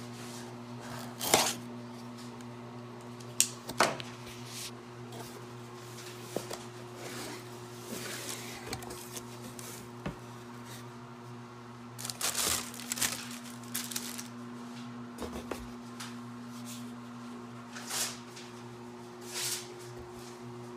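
Hands unpacking a cardboard product box: scattered sharp clicks and scrapes from the box and its contents, and crinkling of plastic wrapping, over a steady low hum.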